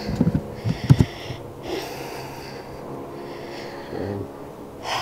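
Loud breathing, one breath about every one and a half seconds. Low knocks and a sharp click from handling come in the first second.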